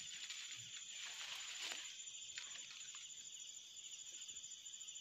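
Faint, steady high-pitched chorus of night insects, with a few soft rustles of leaves about two seconds in.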